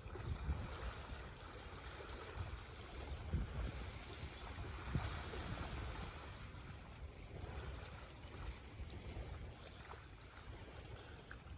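Waves lapping against a lakeshore, with wind gusting on the microphone in uneven low rumbles.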